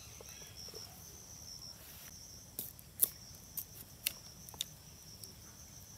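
Steady high-pitched insect trill, like crickets, that weakens about two seconds in. About five sharp clicks or knocks follow in the second half, the loudest about three seconds in.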